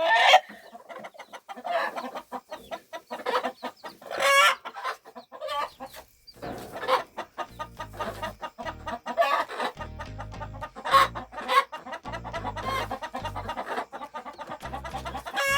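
Chickens clucking and calling repeatedly. Background music with a pulsing bass comes in about halfway through.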